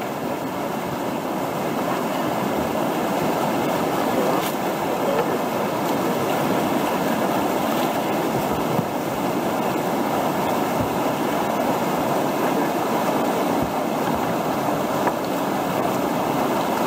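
Whitewater rushing steadily over a river ledge and through the standing wave beside the kayak, a continuous loud wash of churning water.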